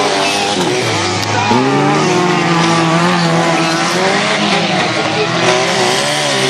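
Several stock car engines racing at high revs on a dirt track, their overlapping notes rising and falling as the drivers accelerate and lift through the bend.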